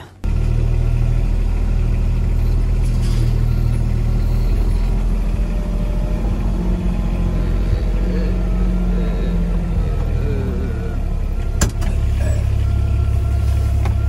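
Farm tractor engine running steadily, heard from inside the cab. A single sharp knock comes about eleven and a half seconds in.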